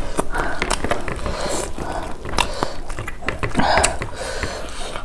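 Close-miked wet chewing and lip smacking of two people eating rice and beef curry with their fingers, with many sharp mouth clicks.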